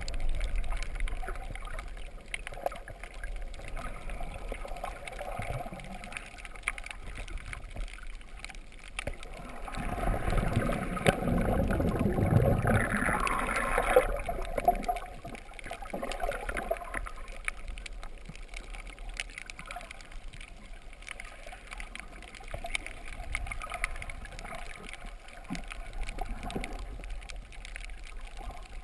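Muffled water noise heard underwater through a GoPro's waterproof housing: a steady gurgling and sloshing of moving water, swelling louder for a few seconds about ten seconds in.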